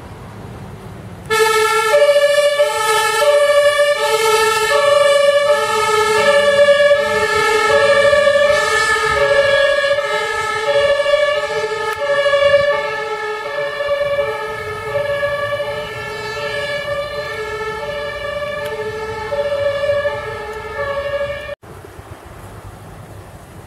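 German ambulance's compressed-air two-tone siren (Martinshorn) sounding, alternating steadily between two notes. It starts about a second in and cuts off abruptly near the end, leaving low traffic rumble.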